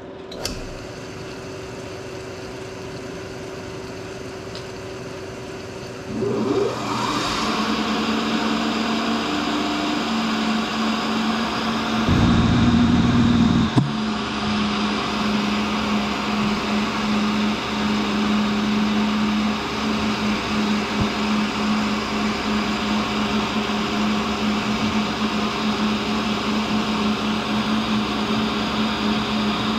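Cincinnati tool and cutter grinder running with a steady hum, then from about six seconds in a steady grinding hiss as the wheel circle-grinds the flutes of an endmill in a roughing pass. It is briefly louder, with a low rumble, for a couple of seconds near the middle.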